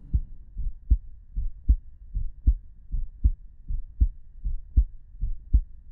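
A heartbeat beating steadily in a double lub-dub rhythm, about 78 beats a minute.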